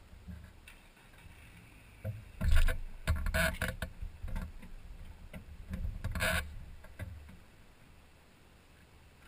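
Mazda MX-5 Miata driving with its top down: a low engine and road rumble with wind noise over the open cockpit. Loud bursts of noise come about two to four seconds in and again around six seconds, then it settles quieter near the end.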